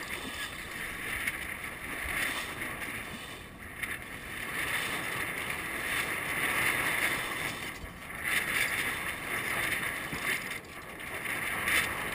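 Water rushing and hissing along the bow of a sailing schooner under way, swelling and easing every few seconds as the boat rides the waves, with some wind on the microphone.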